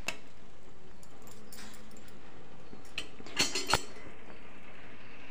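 Two or three short, sharp animal calls about three and a half seconds in, over faint clicks.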